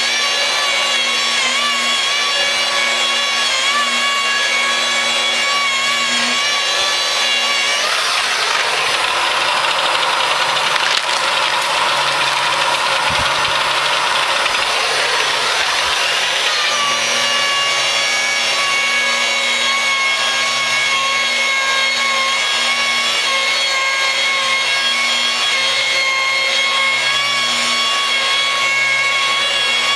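Electric rotary glass polisher running steadily, its pad rubbing across the glass with a steady motor whine. From about 8 to 17 seconds in a harsher rubbing hiss rises over the whine, and the motor's pitch settles slightly lower afterwards.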